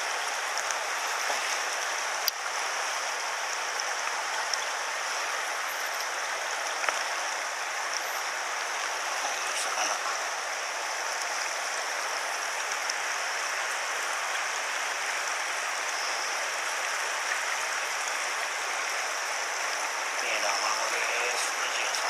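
Small mountain stream running over stones: a steady, even rush of water, with a couple of faint brief clicks.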